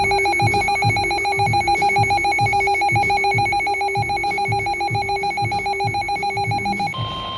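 Weather radio alert tones between two warnings: a loud, rapidly pulsing electronic beeping alarm for about seven seconds. Near the end it gives way to the steady NOAA Weather Radio warning alarm tone.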